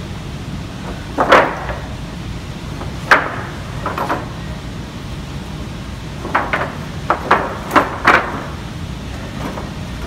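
Wooden lumber boards knocking and clacking against each other as they are shifted and pulled from a stacked rack: about eight sharp knocks at irregular spacing, several in quick pairs, over a steady low hum.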